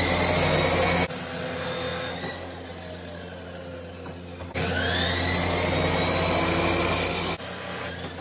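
Abrasive chop saw cutting a hollow steel steering shaft. It is released about a second in and winds down with a falling whine. It starts again about four and a half seconds in with a rising whine, cuts for about three seconds, and is released near the end.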